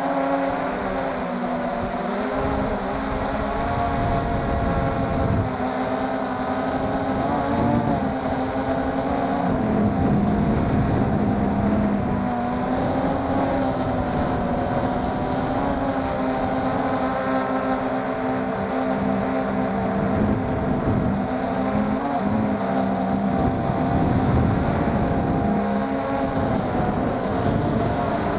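MJX Bugs 3 quadcopter's brushless motors and propellers whining in flight, heard from the camera on board; the pitch shifts up and down as the throttle changes, with a low rumble underneath.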